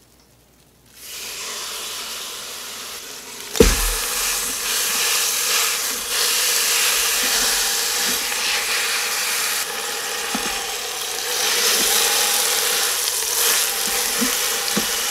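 Seasoned pork shoulder searing in hot oil in an Instant Pot's stainless inner pot on Sauté. A sizzle starts about a second in, a thud comes a few seconds later as meat lands in the pot, and the sizzle then runs louder and steady, with a few light clicks of tongs against the pot.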